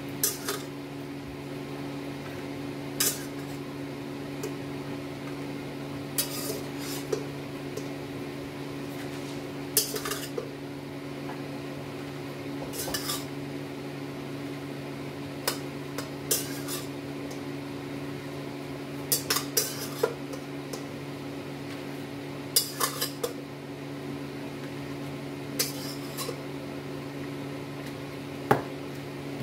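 A metal spoon clinking and scraping against a colander and a ceramic plate while spooning out food. The sharp clinks come in short clusters every few seconds, over a steady low hum.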